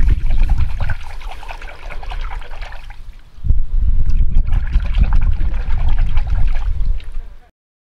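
Hot metal lump, an alloy of copper, brass, bronze and orpiment, quenched in a bowl of liquid with tongs: the liquid bubbles and churns around it, surging louder again about three and a half seconds in, then cuts off abruptly near the end.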